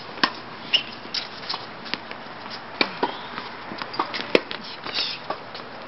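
Tennis rally on a hard court: irregular sharp knocks of racket and ball and the player's running footsteps, the loudest knock about four seconds in.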